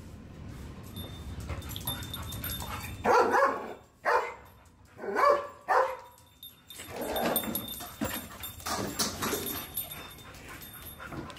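A dog barking and yelping in a run of short calls, the loudest a few seconds in.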